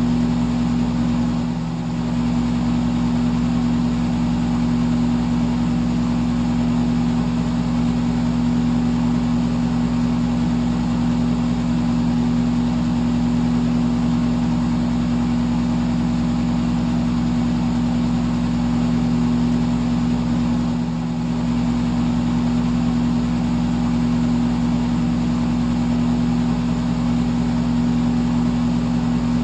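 Electric fan running steadily: a motor hum with a few low steady tones under an even rush of air. The level dips briefly about two seconds in and again about twenty-one seconds in.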